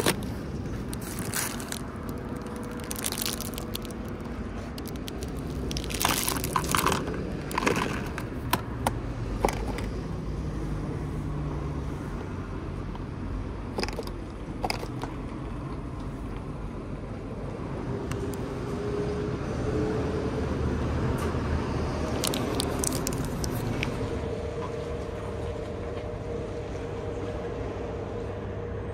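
A small cardboard bubble-gum box being opened and handled, with crackles and a run of sharp clicks in the first ten seconds or so. Later comes a steady machine hum with a faint tone.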